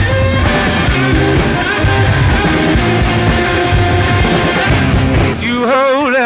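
Rock music with electric guitar and drums; near the end the drums drop out, leaving a held, wavering note.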